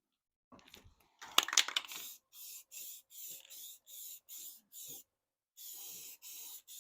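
Spray paint hissing in a run of short, even bursts, roughly two a second with a brief pause in the middle, as a touch-up coat is blended onto a machine cabinet. The bursts follow a brief clatter of clicks just over a second in.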